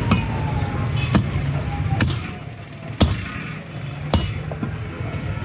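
Butcher's cleaver chopping meat on a wooden log chopping block: heavy, sharp strikes about once a second, five in all, over a steady background hum.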